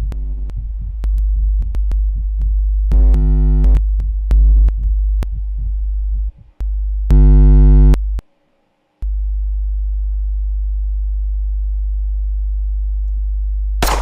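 Electronic film sound design: a deep drone with scattered clicks and three loud buzzing synth tones. It cuts to about a second of silence, then a steady low hum, with a sharp crack near the end.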